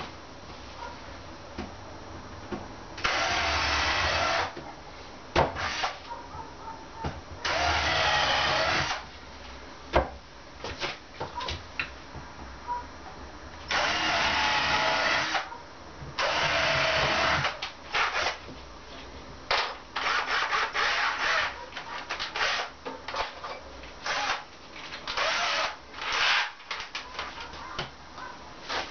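Power drill-driver running in several short bursts of about one to two seconds each, driving fasteners, with clicks and knocks between the runs.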